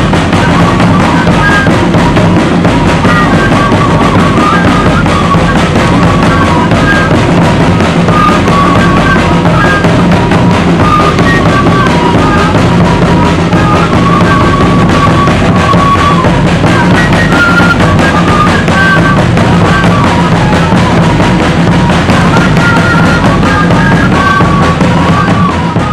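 Loud music with drums and a high melody line moving in short stepped notes, fading down near the end.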